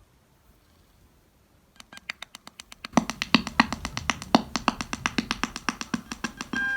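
Music with a fast electronic drum beat that comes in after about two quiet seconds, fills out with low drum hits about three seconds in, and ends on a short held tone.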